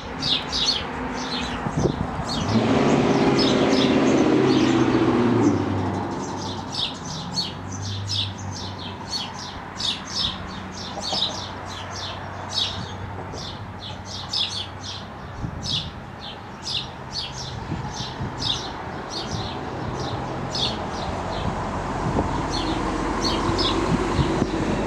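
A small songbird chirps rapidly and repeatedly. About two to five seconds in, a distant freight locomotive's air horn sounds one long chord, the loudest sound here. Toward the end the low rumble of the approaching diesel train builds.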